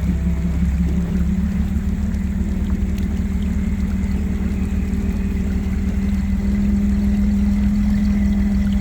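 A 4x4's engine running steadily at low speed on a snowy trail, a constant low hum that grows a little louder and steadier about two-thirds of the way in.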